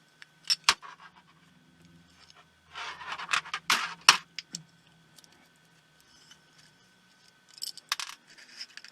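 Small parts of a pico projector clicking and scraping as a spacer is pulled out and the optical engine is slid free: a few sharp clicks about half a second in, a short burst of scraping with sharp clicks about three to four seconds in, and more clicks near the end.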